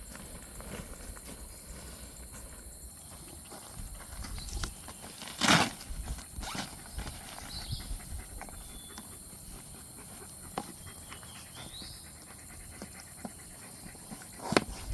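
Scattered knocks, snaps and rustles from clearing a campsite by hand, with one loud crack about five and a half seconds in. Two short high chirps are heard along the way.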